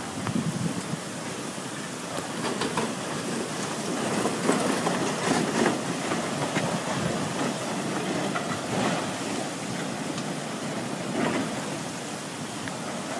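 Flash floodwater rushing down a drained lake channel: a steady noisy rush that swells and eases unevenly, with a few faint ticks.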